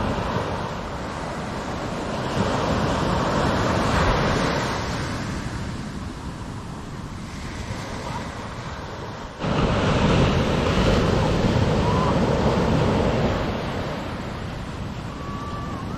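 Ocean surf breaking and washing up on a sandy beach, swelling and ebbing. It turns suddenly louder about nine and a half seconds in.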